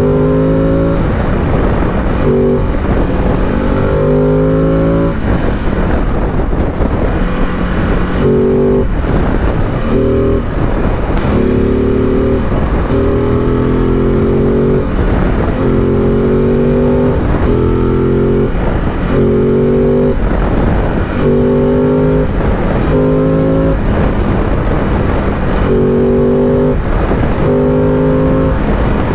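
Ducati DesertX Rally's 937 cc L-twin engine and exhaust at highway speed. It pulls in repeated short bursts, its note rising a little in each, and breaks off every second or two as the throttle is rolled on and off. Steady wind and road rush runs underneath.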